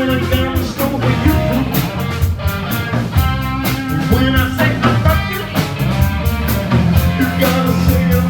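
Live blues-rock band playing: electric guitar over bass and a steady drum beat.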